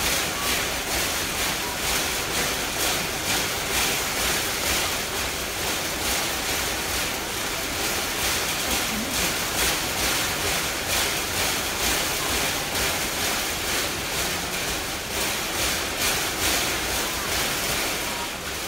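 Chimpanzee striking the steel bars of its cage over and over at a steady rhythm, a repeated rattling clatter of the bars. It is a stereotyped repetitive behaviour of a captive chimp, taken as a sign of zoochosis.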